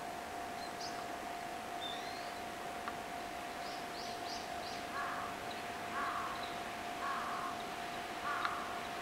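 A crow cawing four times, about once a second, in the second half, with small birds giving thin, high chirps before it. A steady faint hum lies underneath.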